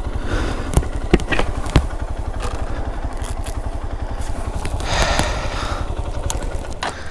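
Hero XPulse 200 4V's single-cylinder engine running with steady, even pulses as the bike rides a rough off-road trail. Three sharp knocks and clatter come in the first two seconds, and a brief rush of noise comes about five seconds in.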